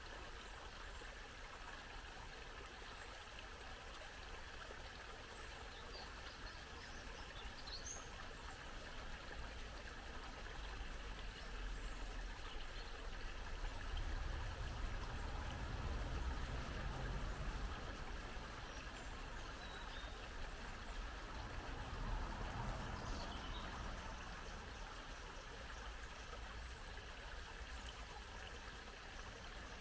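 Babbling brook: shallow water trickling and splashing steadily over stones, with a few faint high bird chirps now and then. A low rumble swells up under the water in the middle.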